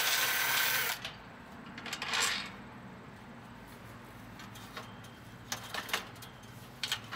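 Cordless impact driver with a socket loosening a gate hinge bolt, running in two short bursts: about a second at the start, then about half a second. A few sharp metal clinks from the steel gate frame come near the end.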